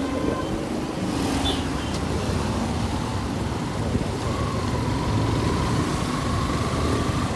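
Steady road-vehicle noise: a continuous low rumble with a faint steady whine joining about halfway through.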